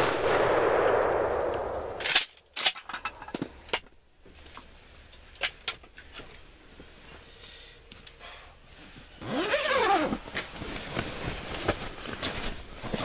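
Echo of a gunshot rolling through the woods and dying away over about two seconds, then a run of sharp clicks and knocks. About nine seconds in comes a call that rises and falls, followed by a noisy rustling stretch.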